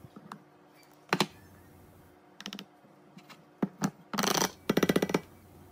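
Powdered baby formula poured from a metal can into a clear plastic container: scattered light taps and clicks of can against plastic, then a louder run of rattling taps and pouring about four seconds in as the upturned can is emptied.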